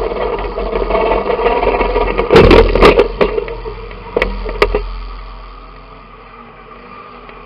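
Banger racing car's engine running hard, heard from inside the cabin. About two and a half seconds in come several loud crashing metal impacts as it hits another car, then two more sharp knocks. After that the engine sound dies away to a low level.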